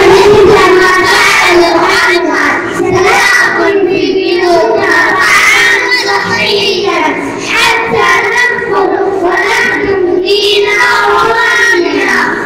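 Young boys singing a song together into handheld microphones, their voices amplified through a sound system, in continuous held phrases.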